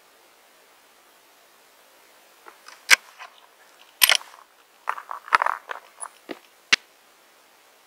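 Savage 110 bolt-action rifle being worked by hand between shots: a quick run of sharp metallic clicks and clacks as the bolt is lifted, drawn back and pushed home to chamber the next round.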